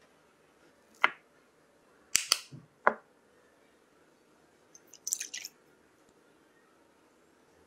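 Small glass cups knocking sharply against a metal baking pan as they are set into it, a few clinks about one to three seconds in. About five seconds in comes a brief splashing as milk and cream are poured onto egg yolks in a glass bowl.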